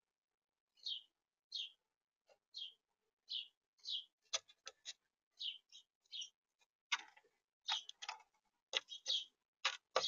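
Juvenile European starling pecking at seed in the feeder tray, close to the feeder camera's microphone. Its bill makes sharp clicks and taps that come thick and fast from about four seconds in. A steady run of short, high bird chirps goes on throughout.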